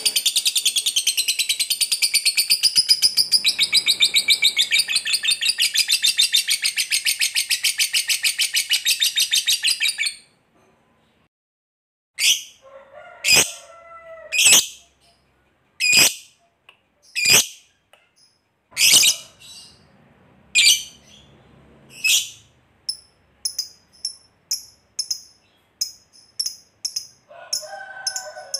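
Lovebird giving a long, very rapid high chattering trill, the 'ngekek panjang' that fanciers prize, for about ten seconds. After a short pause come sharp single shrieks about a second and a half apart, quickening into short chips near the end.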